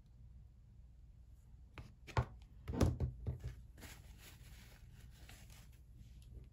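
Tabletop handling sounds: a few sharp knocks about two to three seconds in, the loudest near three seconds, as a plastic fine-tip glue bottle is set down on a wooden table, then soft rubbing of a cloth wiping glue from the fingers.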